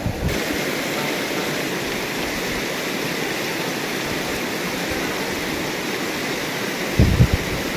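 Mountain river rushing steadily over stones, with a few dull low thumps near the end.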